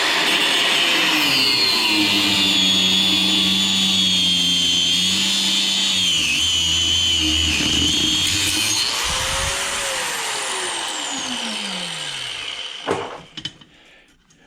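Angle grinder with a cut-off wheel cutting into a washing machine motor's steel shaft: a loud, steady whine whose pitch shifts as the wheel bites. About nine seconds in it is let off and winds down in a long falling whine, followed by a single knock.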